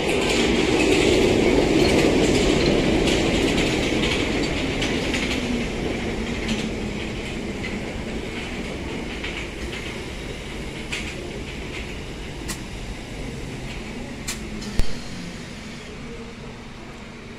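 London Underground Bakerloo line tube train (1972 Stock) pulling into the platform and braking to a stop. Its running noise is loudest in the first few seconds, then fades slowly under a falling whine as the train slows. A few clicks follow, with a sharp knock about fifteen seconds in.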